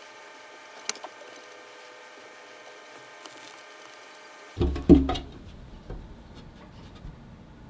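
Faint steady hum, then a clear plastic cover being handled about four and a half seconds in: a quick cluster of hollow knocks and rattles, followed by a few lighter taps.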